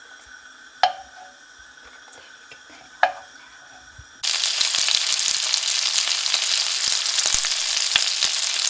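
Frozen dumplings frying in oil in a flat-bottomed pan: a loud, steady sizzle with many small crackles that starts suddenly about four seconds in. Before it there are two sharp clinks, about two seconds apart.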